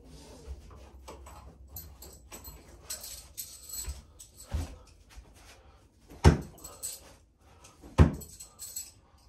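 Steel bo-shuriken (throwing spikes) clinking together in the hand. In the second half there are two loud, sharp hits about a second and a half apart, with a lighter one between them, as thrown spikes strike the upright target board.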